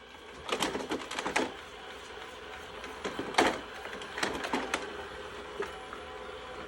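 Shark robot vacuum running as it manoeuvres around its dock, a steady small-motor whir broken by clusters of knocks and rattles, the loudest about three and a half seconds in.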